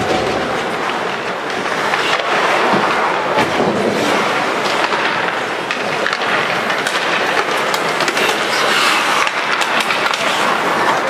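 Ice hockey play: skates scraping and carving on the ice, with frequent sharp clacks of sticks and puck.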